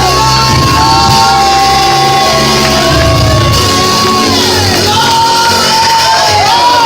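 Loud live praise and worship music: voices singing long held notes that slide between pitches over low instrumental accompaniment, in a reverberant hall.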